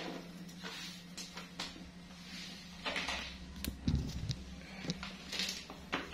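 Scattered knocks, clicks and rustles from a plastic crate and its straw bedding being handled, over a steady low hum.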